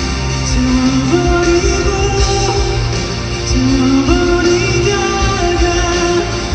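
Live pop-rock band music: a melody moves in held notes that step up and down over a full, continuous band accompaniment.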